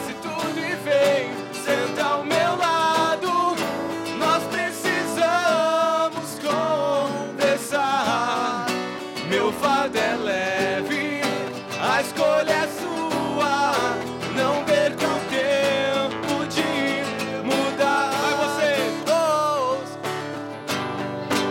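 Two acoustic guitars strummed together while a man sings a wavering melody over them.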